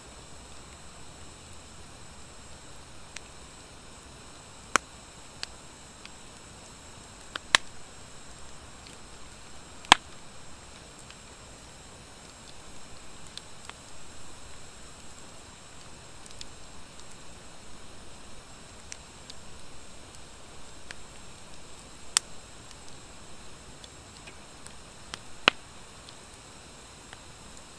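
Campfire of driftwood and dry hardwood firewood burning, with a steady hiss and scattered sharp crackles, about five loud pops, the loudest about ten seconds in. The crackling comes from the dry hardwood; driftwood alone burns without it.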